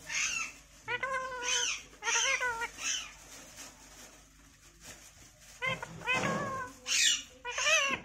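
Green parakeet calling: a run of short, pitched calls that bend up and down, four in quick succession, then a pause of about two seconds, then three more.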